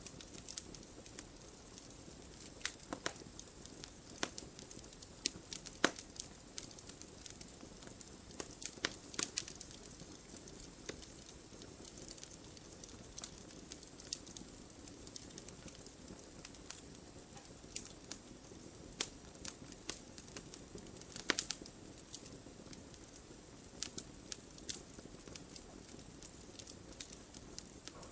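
Wood fire burning in a fireplace: a low steady hiss with irregular sharp crackles and pops, a few of them louder.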